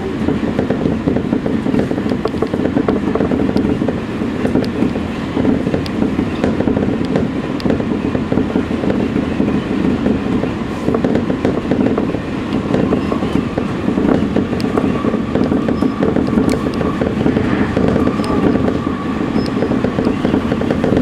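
Electric commuter train running, heard from inside the leading car: a steady rumble of wheels and motors with irregular clicks from the wheels over the track. About halfway through a thin steady whine joins in as the train nears a station.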